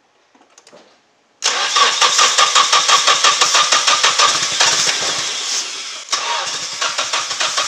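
Nissan 240SX four-cylinder engine cranking on its starter with starting fluid in the intake, a rhythmic whirring chug that cuts in suddenly about a second and a half in and does not settle into running. It won't catch because the distributor is 180 degrees out.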